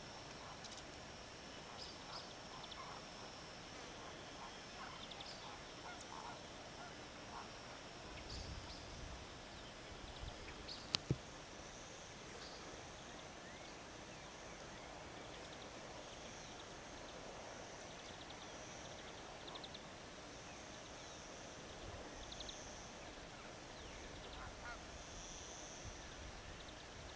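A flock of greater flamingos honking and gabbling, with scattered goose-like calls. A sharp double click stands out near the middle.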